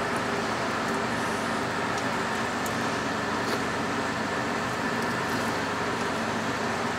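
Steady machine hum and hiss, like a fan or air-conditioning unit running, with a few faint ticks from the knife work.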